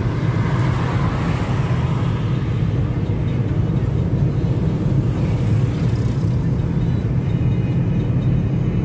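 Steady low rumble of motor-vehicle road noise.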